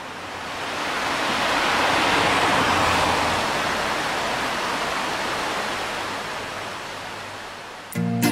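Rushing stream water, a steady noise that swells in over the first couple of seconds and slowly eases off. Music with singing comes in just before the end.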